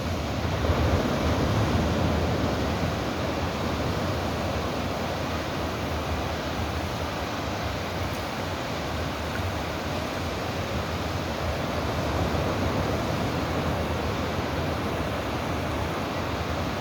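Sea waves washing in as a steady rushing surf, swelling a little about a second in and again later.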